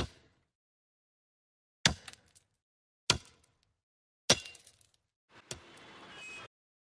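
A meat cleaver chopping meat on a wooden block: five sharp chops, a little over a second apart, with a faint hiss after the last one.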